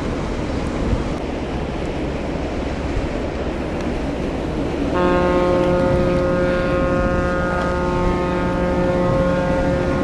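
A container ship's horn sounds one long, steady blast, starting suddenly about halfway through and still sounding at the end, over a steady low rumble of the passing ship and water.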